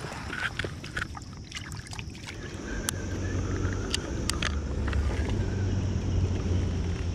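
Light clicks and taps of a baitcasting rod and reel being handled. A few seconds in, a steady low rumble sets in and grows louder under them.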